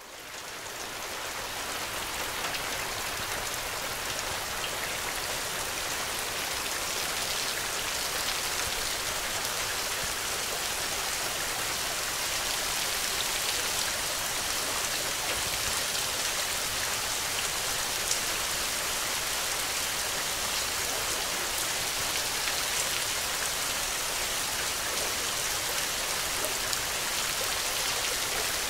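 Steady rain falling, a dense even hiss with fine patter of drops, fading in over the first couple of seconds.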